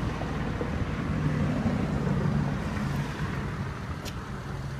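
Power-folding side-view mirrors folding, their small electric motor whirring steadily for about two seconds over steady low car and background noise. A faint click comes about four seconds in.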